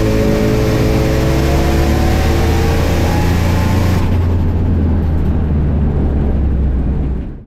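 Turbocharged 6.0 L LQ4 V8 in a Camaro at full throttle on a drag-strip pass, heard inside the cabin, its note climbing in pitch. About four seconds in the throttle is lifted and the hiss falls away, leaving a deep rumble as the car coasts down, which cuts off just before the end.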